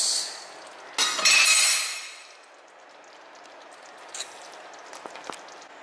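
Metal spatula scraping and clinking against a wok of tomato sauce for about a second, followed by a few faint clicks.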